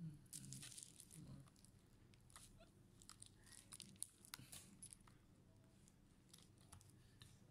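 Faint scattered clicks and crinkles of fingers handling a Dell Inspiron 3511 laptop's metal display hinge and plastic hinge cover on a bubble-wrap pad.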